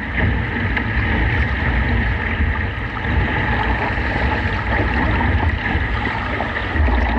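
Gusty wind buffeting the microphone with a steady low rumble, over water rushing and splashing around a kayak as it is paddled through choppy waves.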